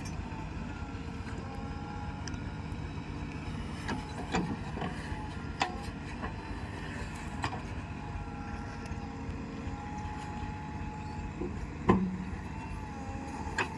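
Heavy diesel engine running steadily, with a few sharp knocks or clanks, the loudest near the end.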